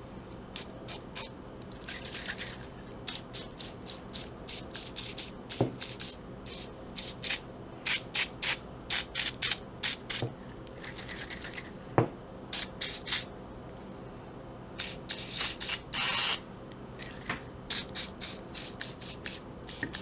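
Aerosol can of Liquid Wrench spraying in a few short hissing bursts, and a rag rubbing the small ratchet parts clean in quick scratchy strokes. Two sharp knocks come about six and twelve seconds in.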